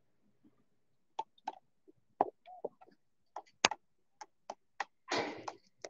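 About a dozen sharp, irregular clicks and knocks, with a short rustling burst about five seconds in.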